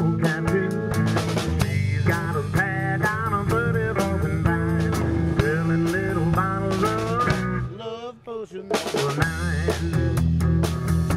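Background rock music with a drum kit, bass and a wavering melodic lead line; the music briefly drops out about eight seconds in, then picks up again.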